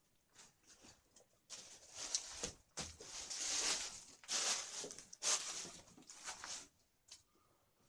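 Someone moving over loose stone rubble: a few faint clicks, then about five seconds of loud crunching and scraping in uneven bursts that stops near the end.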